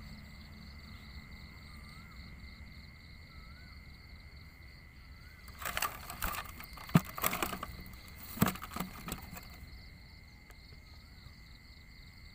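Handling noise: a cluster of clicks and rattling about halfway through, with two sharp knocks, as the phone and the bamboo frog trap are handled. Underneath runs a steady, high, pulsing drone of insects.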